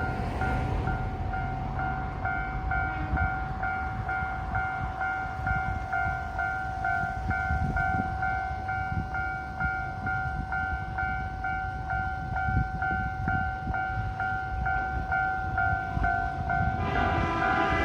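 Japanese level-crossing warning alarm sounding, its electronic ding repeating about twice a second over a steady lower tone. Near the end a second, different alarm tone joins in.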